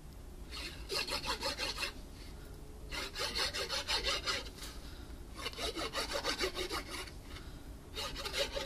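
Tip of a Tombow liquid glue bottle rubbing across cardstock as it draws squiggly lines of glue, in four stretches of rapid strokes, each a second or so long.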